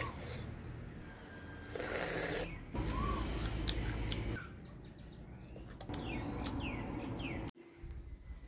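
Mouth sounds of someone eating an egg, with short bird chirps in the background, some rising and some falling in pitch, near the start and again about six seconds in.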